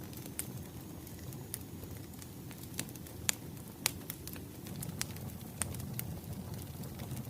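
Wood fire crackling: a low, steady rumble of burning logs with sharp pops scattered irregularly, two louder pops a little past the middle.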